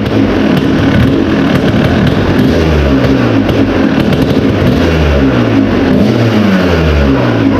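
2001 Kawasaki KX250 single-cylinder two-stroke dirt bike engine running loud after a carburettor tune-up, revving up and falling back several times.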